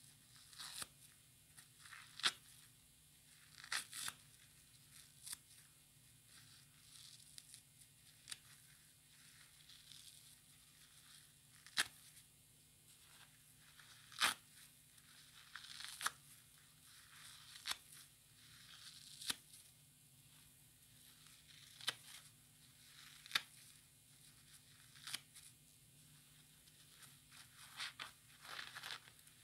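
A soapy foam kitchen sponge with a scouring pad being torn apart by hand: sharp, high-pitched rips at irregular intervals of a second or two, with faint crackle of the lather between.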